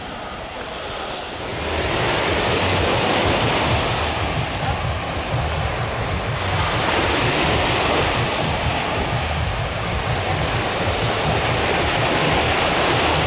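Small waves washing onto a sand beach, with wind rumbling on the microphone; louder from about two seconds in.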